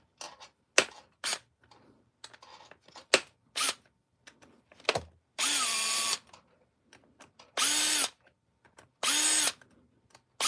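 Cordless drill with a T20 Torx bit running in three short bursts, each a second or less, driving out the screws on a turbocharger's center plate. Before the bursts come light clicks of the bit and metal parts being handled.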